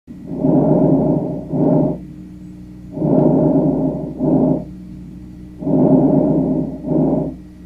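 Breath sounds repeating in three cycles about 2.7 seconds apart. Each cycle is a longer rushing sound followed at once by a shorter one, then a brief pause. A faint steady hum runs underneath.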